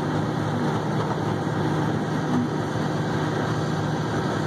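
Haul truck's diesel engine running steadily, heard from inside the cab, a constant low hum under an even mechanical noise.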